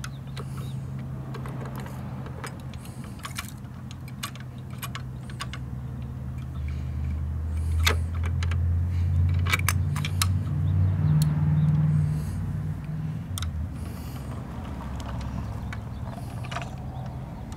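A heavy truck engine running low and steady, growing louder and climbing in pitch for a few seconds in the middle before settling back, with scattered sharp clicks and clatters from a small plastic garbage can and diecast model parts being handled.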